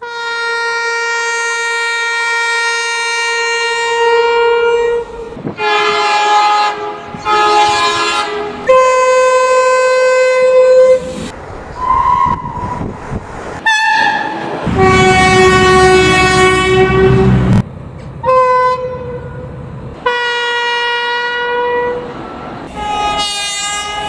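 Irish Rail train horns: a series of separate blasts from different trains, cut one after another. They vary in pitch and length, from a long steady blast at the start to shorter double blasts. About halfway through comes a short whistle, and a little later a loud blast sounds over the rumble of a passing train.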